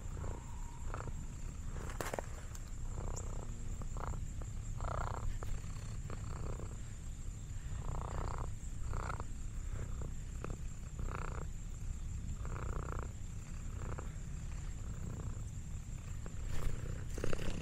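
Orange tabby cat purring close to the microphone: a steady low rumble that runs on unbroken, with soft, breathy swells about once a second.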